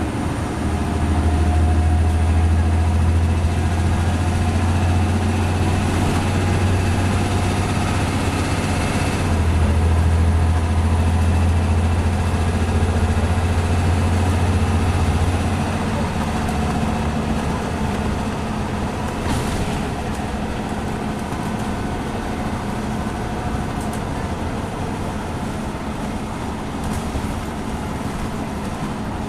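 Scania N94UB single-deck bus heard from inside the saloon, its engine pulling hard with a deep drone and a thin, slowly climbing high whine. About nine seconds in there is a brief break, as the ZF Ecomat five-speed automatic shifts up. At about fifteen seconds the engine eases off, the drone and whine fall away, and quieter road and tyre noise remains.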